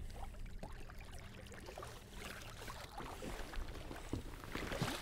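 Small clicks, knocks and rubbing of gear being handled aboard a sit-on fishing kayak, a little louder near the end, with water lapping at the hull.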